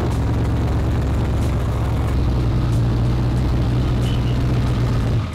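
Off-road buggy's engine idling steadily, then cutting off abruptly near the end.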